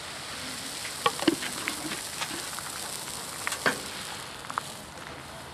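Crepe batter sizzling on a hot griddle over a small wood-fired folding stove: a steady high hiss with a few sharp pops and crackles.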